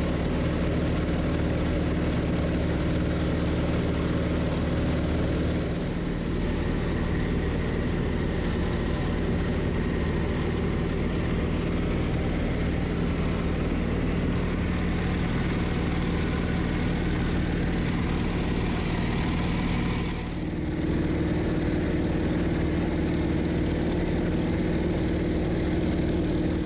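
T-28 Trojan's radial piston engine and propeller running steadily in cruise flight, a loud, even drone heard from the camera aircraft. Its tone shifts slightly about six seconds in and again about twenty seconds in.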